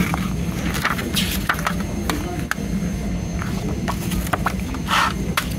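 Glossy paper pages of a CD booklet being turned and handled: rustling swishes of the pages about a second in and again near the end, with many small taps and clicks of fingers and paper against the plastic jewel case.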